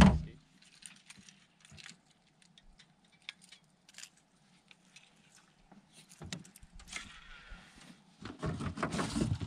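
A sharp knock at the start, then scattered light clicks and a metallic jingle of fishing tackle being handled: a lure's treble hooks and the reel. Some rustling comes near the end.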